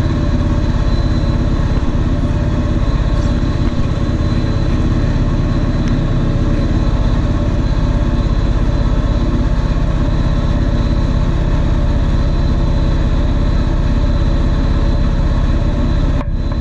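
Small 250-size quadcopter's electric motors and propellers buzzing steadily with a rush of air, heard through the camera mounted on the craft.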